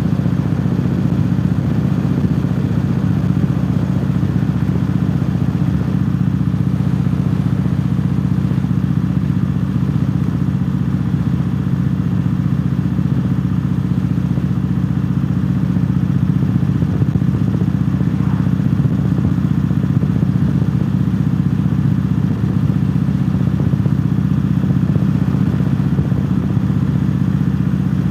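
Cruiser motorcycle engine running steadily at cruising speed, with a low, even sound that does not change in pace.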